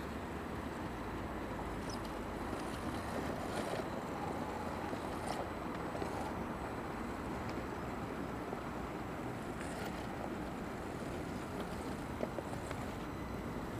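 Steady outdoor rumble, mostly wind buffeting the microphone, with a few faint clicks scattered through it.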